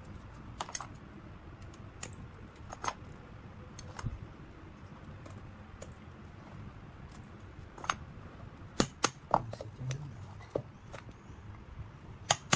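Scattered light clicks and snips from scissors and hand tools on an old fan motor's stator. From about nine seconds in come sharp metal taps of a hammer striking a chisel, closing in a quick run of strikes, as the old windings are cut out of the stator.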